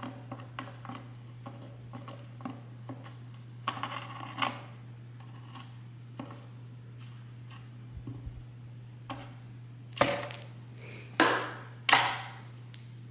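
A cat playing around a cardboard box: scattered light taps and rustles, then three sharp knocks about a second apart near the end as she bumps into the box. A steady low hum runs underneath.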